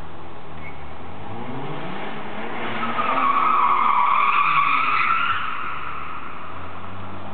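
A car's tyres squeal for about two and a half seconds, starting near three seconds in, over the running engine of a car driving past.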